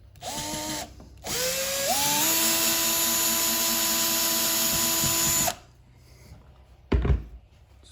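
Power drill backing out the screws of a wall switch: a short burst, then a longer run of about four seconds that speeds up and holds steady before stopping. A single thump follows near the end.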